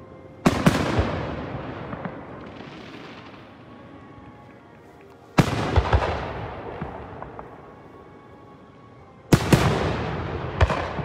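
Aerial fireworks shells bursting overhead: three loud booms, about half a second, five and a half and nine seconds in, each followed by a few sharper cracks and a rumble that fades over several seconds.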